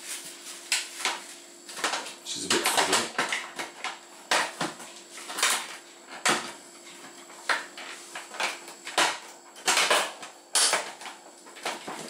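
Irregular plastic clicks, knocks and rattles as wiring connectors and the plastic control-module housing of a dishwasher are handled and pushed into place.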